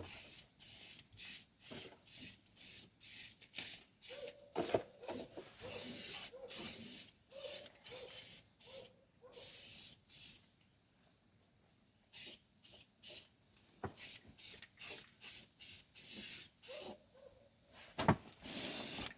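Aerosol can of rubberized undercoating spraying in short, repeated hissing bursts, about two a second, with a brief pause a little past the middle.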